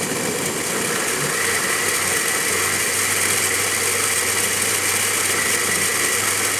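Blendtec high-power blender motor running at speed, blending a load of cucumbers, collard leaves and water. A steady whine settles in about a second and a half in. With enough liquid added, the blade is pulling the mixture through instead of spinning free in an air pocket, so there is no cavitation.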